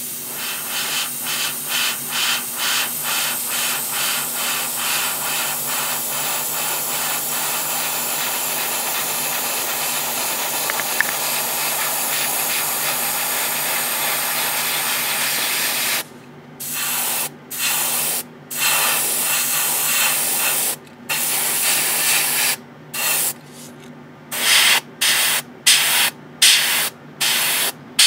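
Gaahleri GHAD-39 airbrush spraying: a continuous high hiss of air and paint for about sixteen seconds, then a string of short bursts that come quicker and quicker as the trigger is pressed and released. A faint low steady hum runs underneath.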